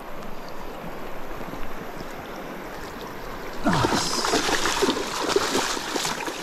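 Shallow stream running over rocks, then about three and a half seconds in, close splashing in the water for a couple of seconds, louder than the stream.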